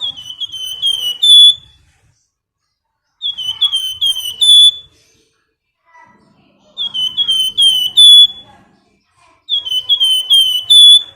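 A bird known to Indonesian bird-keepers as the flamboyan sings its 'nyiul' song four times. Each phrase is a quick run of five or six clear whistled notes that swoop upward and grow louder, with the last note the highest, and there is a short pause between phrases.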